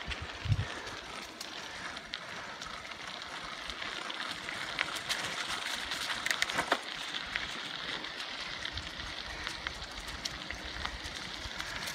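Bicycle tyres rolling over a gravel trail covered in dry fallen leaves: a steady crunching hiss with many small crackles and clicks throughout.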